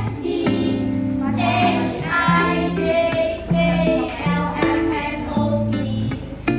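A children's song: a child's voice singing a melody over an instrumental backing with held bass notes.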